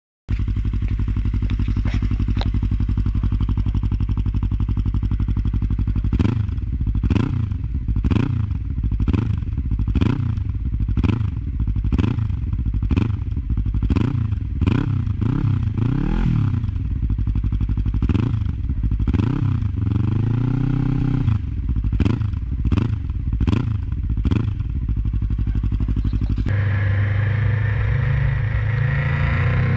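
Motorcycle engine idling, then revved in a long run of quick throttle blips, with one longer rev rising and falling about twenty seconds in. Near the end the sound switches abruptly to a different, steadier engine note.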